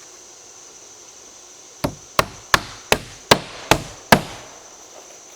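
Hammer driving a nail into a wooden board: seven strikes about two and a half a second, starting about two seconds in, the last blows the loudest.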